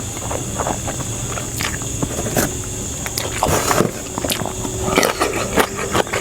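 A person eating close to the microphone: irregular chewing and wet mouth clicks and smacks, with a steady background hiss.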